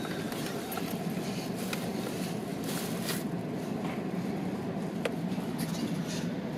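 Steady road and engine noise of a car driving slowly, heard from inside the cabin, with a few faint clicks.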